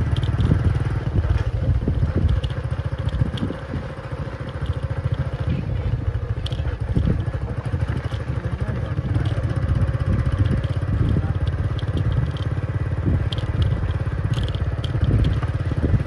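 Vehicle engine running steadily at low speed, with tyres crunching over a dirt track and scattered small clicks of grit.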